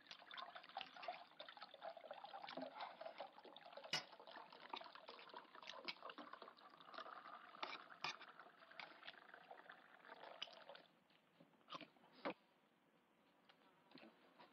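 Faint liquid pouring and trickling from a bottle into a pot, with small clicks through it. It stops about eleven seconds in, leaving only a couple of clicks.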